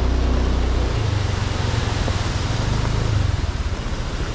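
Motorcycle engine running while riding, a low pulsing engine note under a steady rush of noise. The engine note shifts up about a second in and back down a little after three seconds.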